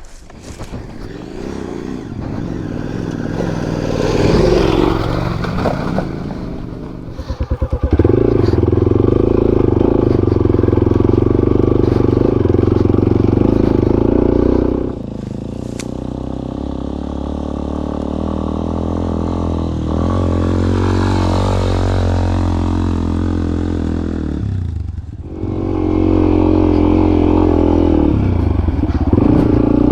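Adventure motorcycle engine running under load on an off-road climb, building up over the first several seconds and then pulling steadily. It eases off about halfway, with a dip and rise in pitch, drops briefly near the end, then pulls hard again.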